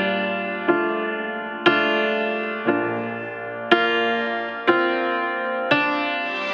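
Background piano music: a chord struck about once a second, each one ringing out and fading before the next.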